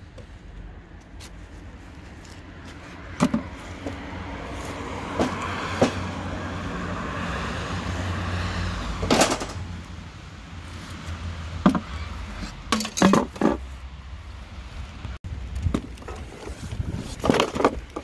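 A car passing on the street, its engine and tyre noise swelling over several seconds and then fading, over a steady low rumble. Sharp knocks and clatters of things being handled, several in quick succession in the second half.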